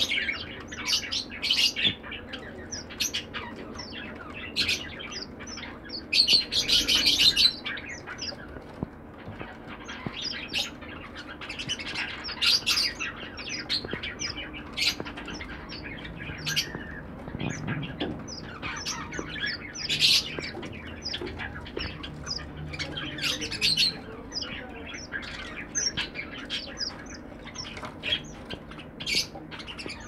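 Small caged finches, strawberry finches (red avadavats) among them, chirping: a steady stream of short, high chirps, several a second, with a louder run of calls about six to seven seconds in.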